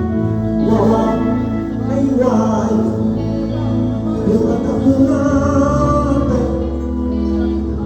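Live mbalax band at a sound check: a singer's voice over steady held chords and bass, the singing coming in about a second in and stopping shortly before the end.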